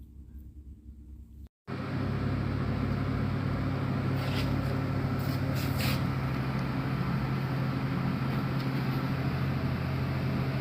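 A steady low machine hum with hiss, starting abruptly about one and a half seconds in and holding level.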